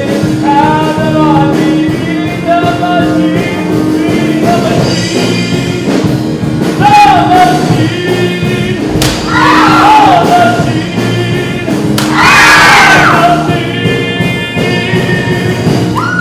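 A solo voice singing over instrumental accompaniment, with long bending notes and the loudest sung phrase a few seconds before the end.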